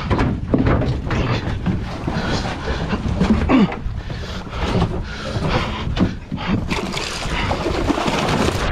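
Wind buffeting the microphone and water slapping against the hull of a small open fishing boat, with scattered knocks. Near the end a hooked fish thrashes and splashes at the surface beside the boat.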